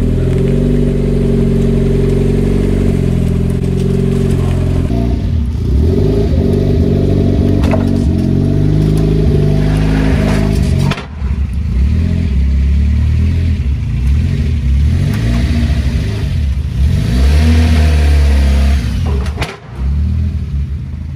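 Turbocharged car engine running loud and revving, its pitch holding and then stepping up and down, with brief breaks in the sound about halfway through and near the end.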